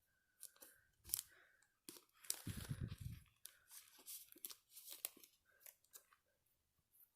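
Faint crinkling, rustling and light clicks of Pokémon trading cards and a plastic card sleeve being handled, with a dull bump about two and a half seconds in.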